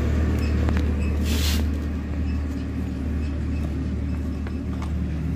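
Bajaj Pulsar NS200's single-cylinder engine idling steadily, with a brief hiss about a second in.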